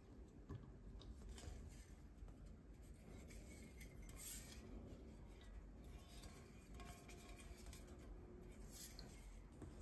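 Near silence: faint handling of a butane gas canister, with a brief hiss about four seconds in and a weaker one near the end.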